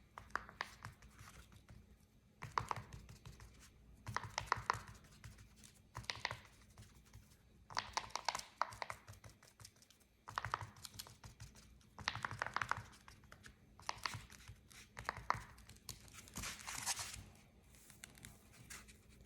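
Crinkling and rustling of handled plastic packaging, in short bursts every couple of seconds.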